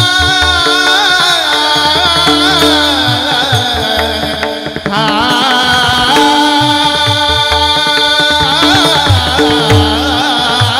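Marathi Varkari kirtan tune sung by voices, with drum strokes from a mridang and the jingle of small tal hand cymbals under steady held accompanying tones. The singing breaks off briefly about halfway through, then picks up again.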